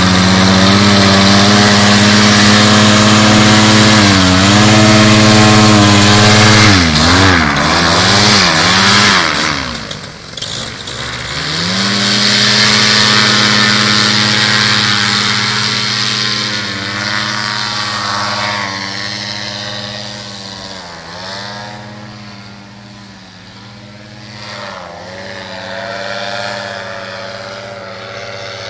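Paramotor trike's Simonini Gold 200 cc two-stroke engine driving a 125 cm propeller, loud at high power with its pitch wavering through the wing inflation. It is throttled back briefly about ten seconds in, then runs steadily again through the take-off run and climb-out, fading as it flies away.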